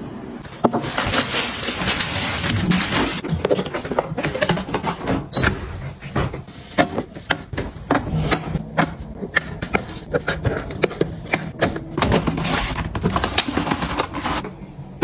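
Objects being handled: a string of clicks and knocks with bursts of rustling, as things are picked up, moved and set down.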